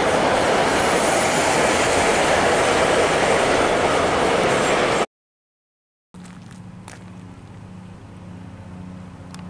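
Loud, steady rushing noise that cuts off abruptly about five seconds in. After a second of silence comes a much quieter steady low hum with a few sharp clicks.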